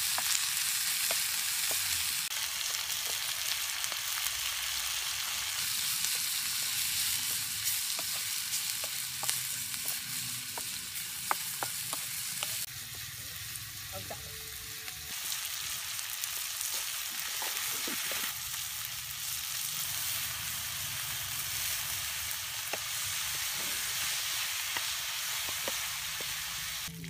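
Snake meat and vegetables sizzling hard in a steel wok while a wooden spatula stirs them, with scattered light clicks over the steady frying hiss.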